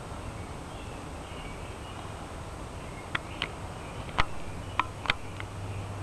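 Woodland ambience: a steady low rumble with faint high twittering, then about six sharp, short clicks or chips in the second half, the loudest about four seconds in.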